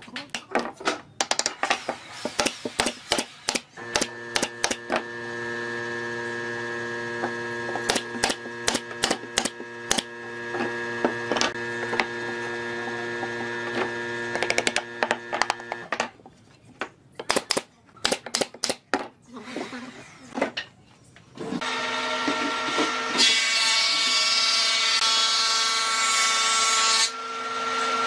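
Woodworking power tools and knocks on wood. A power tool's motor runs steadily for about twelve seconds under a stream of sharp wooden knocks and clicks. After a few more knocks, a louder, higher-whining tool starts and runs to the end, with a hiss over it for a few seconds.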